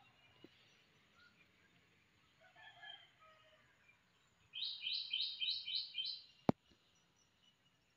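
A bird chirping: a few scattered chirps, then a quick run of about six bright chirps. A single sharp click follows.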